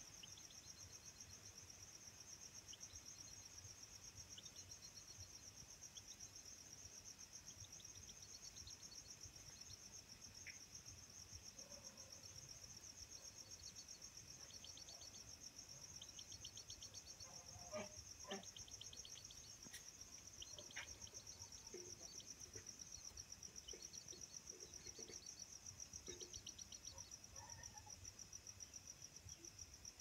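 Faint night insect chorus: a steady, high-pitched, rapidly pulsing trill, with short chirps repeating beneath it and a few faint clicks a little past the middle.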